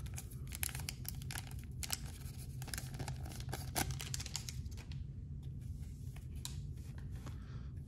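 Foil wrapper of a trading card pack crinkling as the cards are pulled out and handled, a dense run of small crackles that thins out about halfway through. A steady low hum runs underneath.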